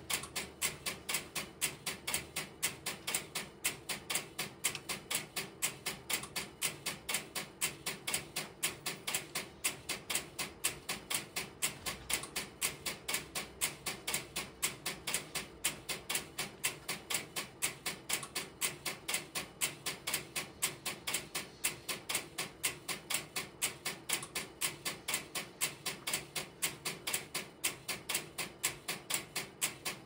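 Interrupter relays of an idle telephone central office clicking in a steady, even rhythm, about three clicks a second, heard at reduced level from a neighbouring aisle of equipment.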